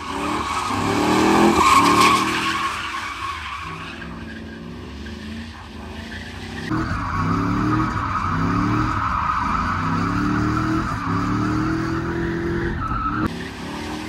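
Pickup truck drifting in circles on a wet track: the engine revs up and down over and over, its pitch climbing with each rev, over the hiss and squeal of spinning tyres. It is loudest about two seconds in, and the sound shifts abruptly about 4 and 7 seconds in.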